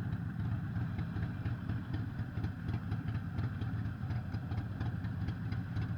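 Harley-Davidson Sportster 883 SuperLow's air-cooled V-twin engine running steadily, a fast, even pulsing exhaust note with no rise or fall in pitch.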